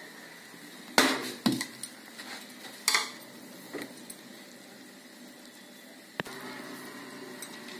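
Steel spoon clinking and scraping against an aluminium pan while stirring puffed rice coated in jaggery syrup: a few sharp knocks in the first three seconds, then quieter stirring with a single click about six seconds in.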